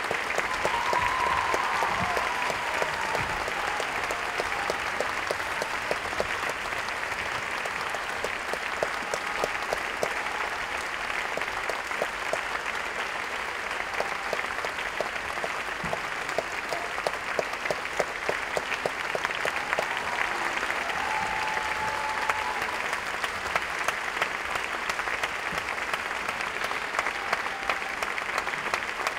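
Theatre audience applauding steadily: many hands clapping together during curtain-call bows.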